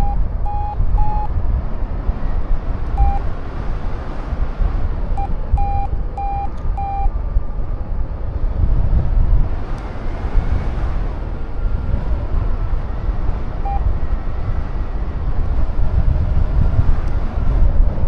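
Strong wind buffeting the microphone, with a paragliding variometer giving short beeps in a few brief runs, the vario's signal that the glider is climbing.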